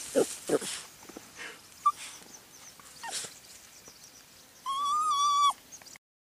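Small dog harassing a crab: two short low noises about half a second in, then a high, steady whine lasting under a second that drops in pitch as it ends.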